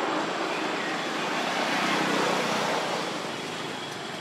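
Steady rushing noise of a passing vehicle, fading gradually as it moves away.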